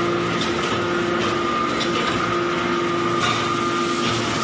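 Briquetting press running in a factory: a steady machine hum with a constant high whine over a broad din, and a few faint knocks.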